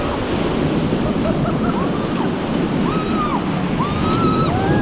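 Whitewater river rapids rushing loudly and steadily under a raft, with wind on the microphone. From about two seconds in, several people let out high, drawn-out whooping shouts.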